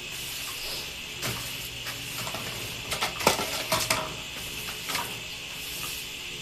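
A few light knocks and clatters, bunched together about halfway through, over a steady background hiss.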